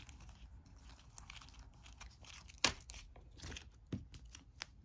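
Game cards being handled and flipped through: faint rustling with a few sharp clicks, the loudest about two and a half seconds in.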